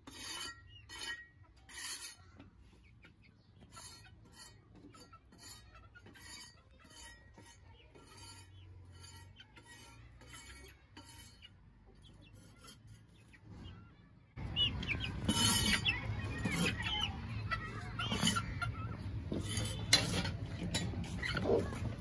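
Two-month-old Aseel chicks clucking and peeping. The sound is faint with short sharp clicks at first, then about two-thirds of the way in it turns suddenly much louder and busier.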